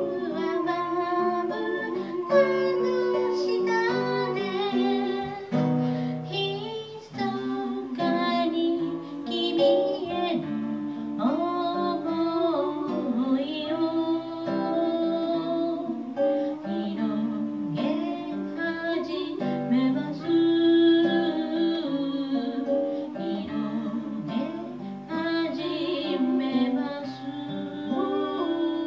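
Acoustic guitar played live, with a voice singing over it into a microphone.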